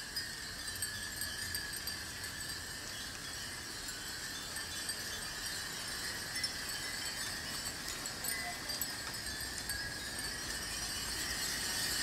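Many small glass wind chimes (furin) tinkling together, a continuous scatter of light high rings.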